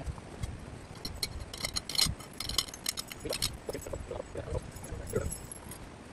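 Small metal hardware clinking and jingling in a quick cluster of clicks from about a second in to the middle, amid soft handling noise as tent guy ropes are gathered and coiled by hand.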